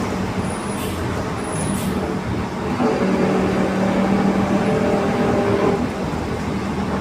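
Mercedes-Benz LO 916 Bluetec 5 bus running, its 4.8-litre four-cylinder OM924 LA diesel joined by a steady growl from the differential: a held low tone, strongest from about three to six seconds in. Two brief high squeaks come about a second apart near the start.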